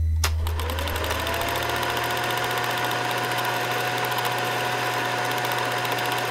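Film projector sound effect: a sharp click, then the projector whirs up to speed with a rising pitch and runs on with a steady, rapid clatter of its film mechanism.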